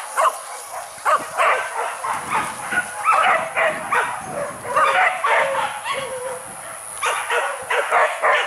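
Hunting dogs barking in a rapid, overlapping string of short barks, several a second, as they chase wild boar.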